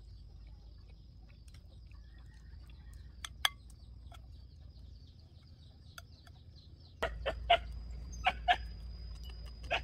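Chickens clucking, a few short clucks mostly in the last three seconds, over a faint steady high-pitched whine.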